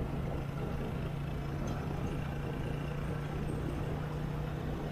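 A vehicle's engine running steadily while moving along a road, with a constant low hum and road noise throughout.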